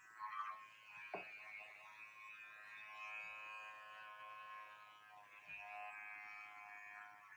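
Corded electric hair clippers buzzing steadily and faintly while held to the hair, with a couple of soft knocks.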